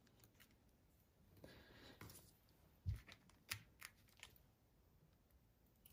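Near silence with faint papercraft handling: a soft rustle of card, then a few light taps and clicks as a foam dimensional is picked off its backing sheet with a pointed tool.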